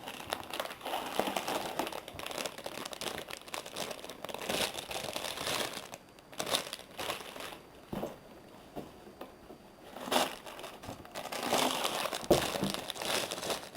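Plastic bags of Lego pieces crinkling and rustling as they are handled, in irregular bursts, quieter for a few seconds in the middle.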